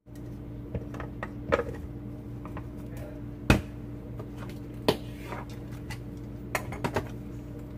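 Clicks and knocks of hard plastic as the parts of a Ninja food chopper are handled and fitted together, with two sharper knocks about three and a half and five seconds in, over a steady low hum.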